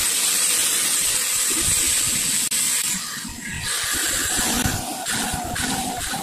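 Pen-style mini electric rotary drill running with a steady high whine and hiss as its small bit drills holes into PVC pipe. The sound turns uneven from about three seconds in, as the bit bites in and lifts out of the plastic.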